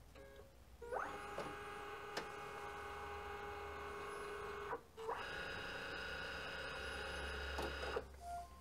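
Flatbed scanner of a Brother MFC-9142CDN multifunction printer running a scan. The scan head's motor whines steadily for nearly four seconds, stops briefly, then whines again for about three seconds.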